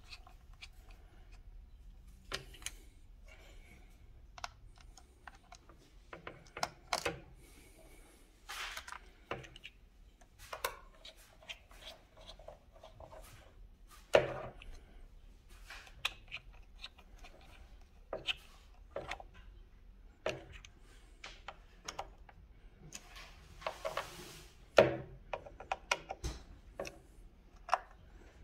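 A small screwdriver turns the back-cover screws of a plastic Stratus 2S ADS-B receiver, giving scattered sharp clicks and short scrapes. There are a few louder knocks as the plastic case is handled.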